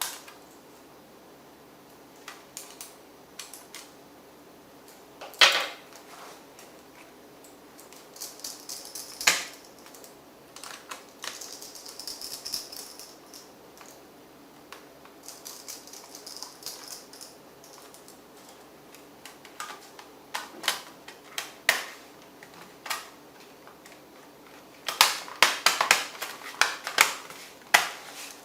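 Scattered plastic clicks and taps of hands working on an HP Pavilion G6 laptop, with patches of soft scraping and a quick run of clicks near the end.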